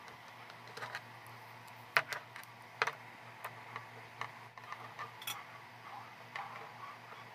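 Small clicks, taps and knocks of a Redragon Seyfert microphone, its cable and its plastic spider shock mount being handled and fitted together, with two sharper knocks about two and three seconds in, over a faint steady low hum.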